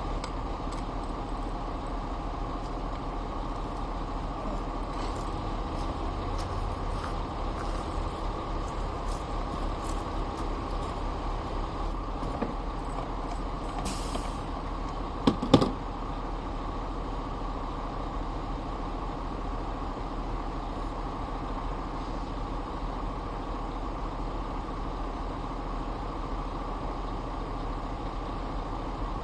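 Steady mechanical drone of workshop background noise, with scattered light clicks of hand tools working, and a sharp knock about fifteen seconds in.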